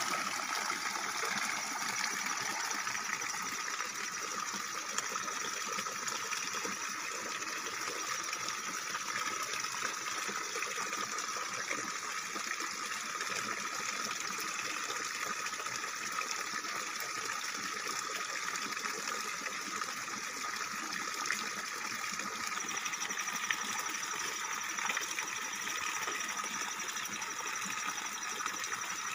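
Steady stream of water pouring from a pipe spout and splashing onto the ground. A steady high tone joins about three-quarters of the way through.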